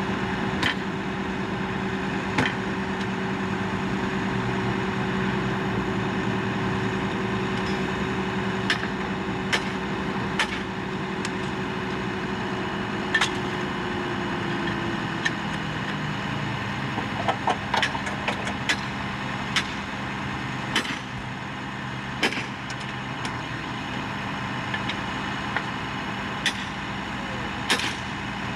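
A work vehicle's engine running steadily at idle, with one tone in its note sliding lower about halfway through. Sharp, short knocks sound at irregular intervals every second or two over it.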